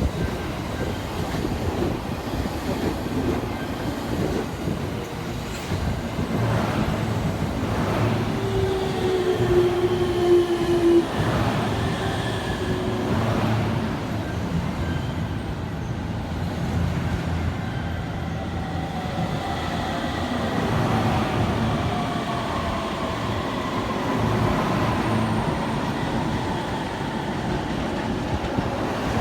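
Electric train moving through a station, with steady rumble of wheels and running gear. A short steady tone sounds about nine to eleven seconds in, and several tones glide slowly downward in the second half.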